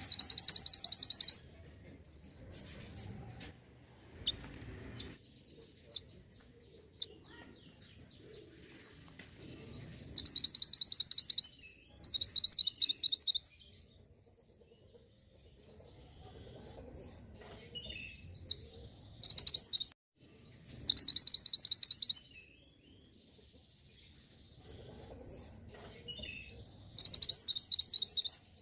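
Recorded songbird lure sound: short bursts of a rapid, high-pitched trill, each lasting about a second or two, repeated seven times with pauses. Fainter, softer chirps fall between the trills.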